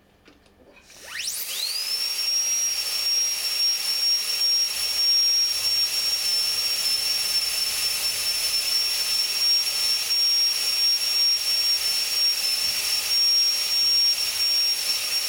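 High-speed dental handpiece with a diamond bur shaping a composite buildup on a plastic molar. About a second in it spins up quickly to a steady, high-pitched whine with a hiss of air, and holds there.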